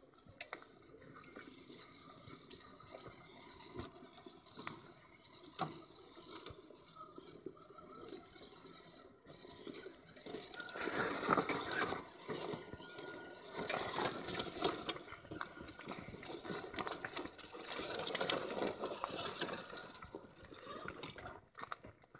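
Electric 1/10-scale RC crawler and basher trucks driving over stones, gravel and dry twigs: tyres and chassis crunching and clicking, louder and busier from about ten seconds in as they come close.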